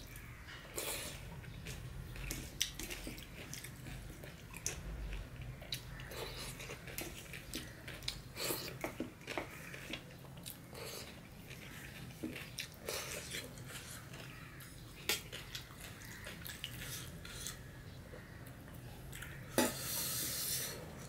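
Close-miked chewing and wet mouth sounds of a person eating rice and curry by hand, with scattered small clicks and smacks. A longer, louder noise comes near the end.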